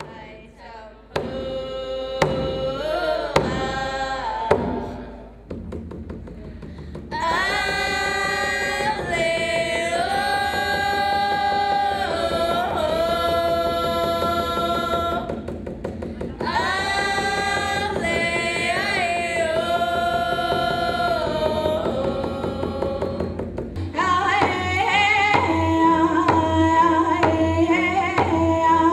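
Music with a solo singing voice held in long, gliding phrases. About 24 seconds in the sound changes to a young woman singing into a microphone.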